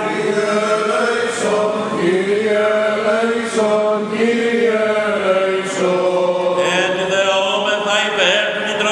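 Byzantine chant in male voices: a single slow melody line moving between held notes over a steady low drone note (the ison).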